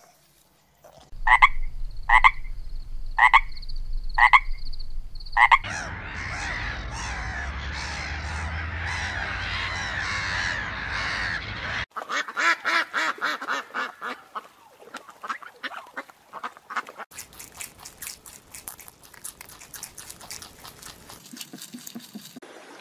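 Frogs croaking: five single calls about a second apart, then a dense chorus of many overlapping croaks. About halfway through this cuts to the rapid splashing and wingbeats of a flock of waterbirds taking off across water.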